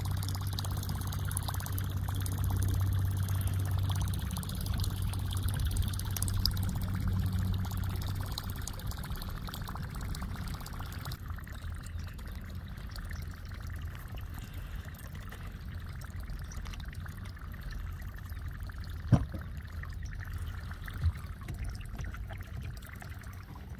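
Water trickling and splashing, over a low steady hum that eases after about ten seconds. A single sharp knock about nineteen seconds in.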